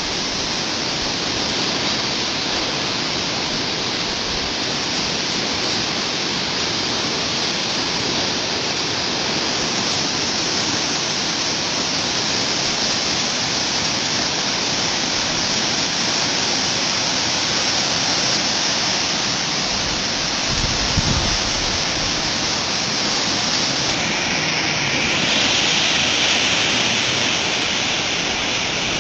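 Floodwater of a wadi in spate rushing past in a steady, loud roar of water. A brief low bump comes about two-thirds of the way in.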